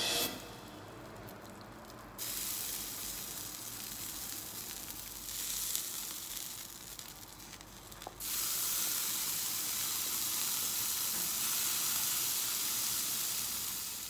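Leftover burger fat sizzling in a hot frying pan: a steady hiss that jumps louder about two seconds in and again about eight seconds in.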